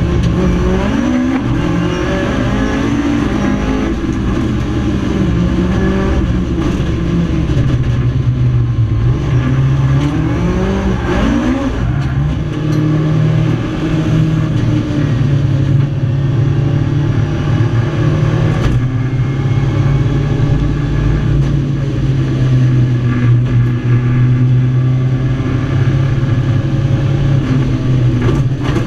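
Ford Escort Mk2 race car's Millington four-cylinder engine, heard from inside the cabin. The revs rise and fall repeatedly for roughly the first twelve seconds, then the engine settles into a steady low-rev drone as the car drives slowly off the track after its run.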